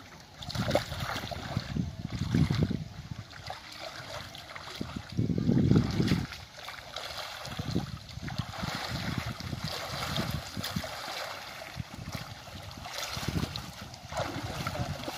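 Shallow water sloshing and splashing as a man wades and hauls a cast net back in by hand, in irregular surges, loudest around two to three seconds in and again near six seconds.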